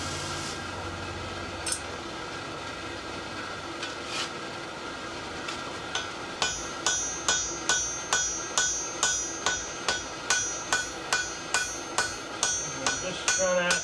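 Hand hammer striking a red-hot horseshoe on a steel anvil: a regular run of ringing blows, about two and a half a second, starting about six seconds in, after a couple of single taps. The blows are curving the hot horseshoe. A steady hum runs underneath.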